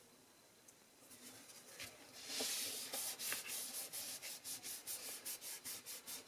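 A hand rubbing back and forth over a paper card, pressing freshly glued designer paper pieces flat: a dry papery rubbing that starts faintly about a second in and settles into quick strokes, about three a second.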